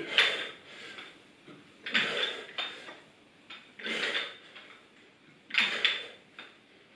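Metal plates of a pair of dumbbells clinking and rattling during dumbbell thrusters, a short burst about every two seconds, once per rep.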